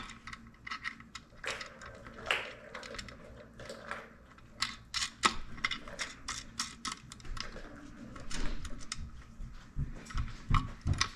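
Irregular small metallic clicks and taps as a bolt, nut and washer are handled and fitted by hand into a chrome passing light's mounting bracket. A few duller knocks come near the end.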